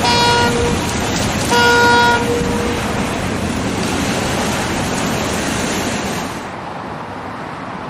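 Road vehicle horn tooting twice, a short toot and then a longer one, over steady traffic or engine noise. The noise quietens about six seconds in.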